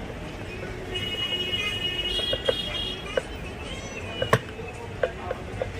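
Scattered clicks and knocks of parts being handled during mixer grinder repair, the loudest about four seconds in. A brief high, wavering tone sounds from about one to three seconds in.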